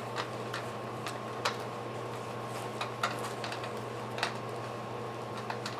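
Scattered light clicks and taps of swing parts and hardware being handled during assembly, about six at uneven spacing, over a steady low hum.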